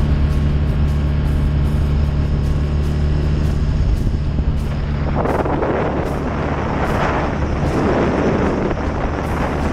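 BMW R NineT's 1170 cc boxer twin running steadily at cruising speed. About halfway through, loud wind buffeting on the helmet microphone rises over the engine.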